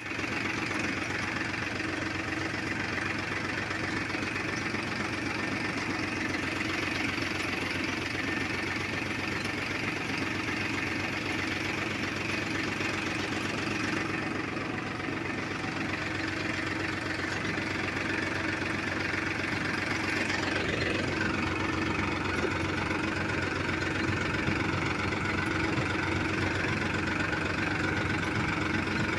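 Farmtrac 42 tractor's diesel engine running steadily while pulling a seed drill. It gets a little louder about two-thirds of the way through.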